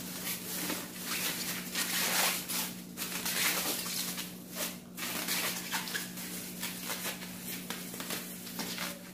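Thin plastic bag crinkling and rustling in irregular bursts as it is twisted and knotted shut around a load of blanched chayote pieces.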